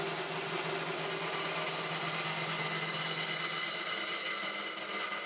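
A machine running steadily in a metal shop: an even hum with a few constant tones over a hiss, holding the same pace throughout.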